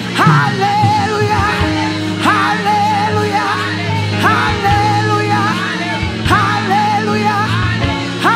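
Gospel worship song: a woman sings lead into a microphone over steady instrumental accompaniment, calling 'alléluia'. A short phrase recurs about every two seconds, each one swooping up into a wavering held note.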